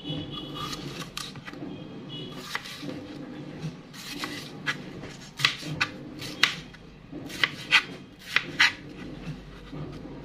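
Knife slicing a yellow bell pepper and striking a plastic cutting board: scattered cutting sounds with a run of sharp knocks in the second half.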